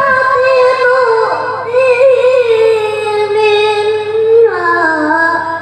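A boy reciting the Quran in melodic tilawah style into a microphone. He holds long, high, ornamented notes, and the melody steps down about four and a half seconds in as the phrase ends.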